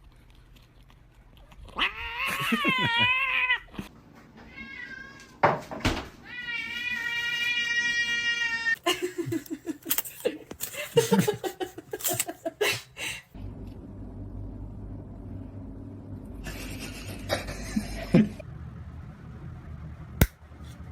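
Domestic cats meowing and yowling: a wavering call about two seconds in and a long drawn-out meow a few seconds later, followed by shorter scattered noises and knocks.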